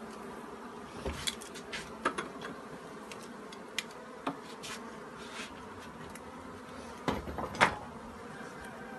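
Honeybees buzzing in a steady hum from an opened hive, with scattered clicks and knocks of wooden frames and a metal hive tool, the loudest near the end.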